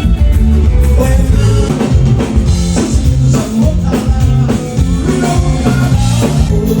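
Band music with a drum kit playing a steady beat under sustained pitched instrument notes.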